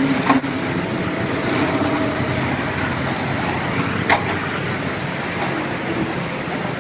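Radio-controlled rally car running on a dirt track: a steady noisy hiss of motor and tyres on the dirt, with a sharp knock about four seconds in.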